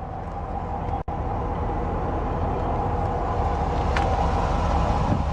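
The 2011 Jeep Grand Cherokee's 5.7-litre Hemi V8 idling at its exhaust tip, a steady low rumble. The sound cuts out briefly about a second in.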